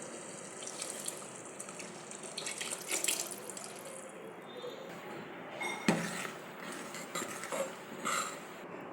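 Water running from a tap into a sink, with dishes clattering now and then and one sharp knock about six seconds in.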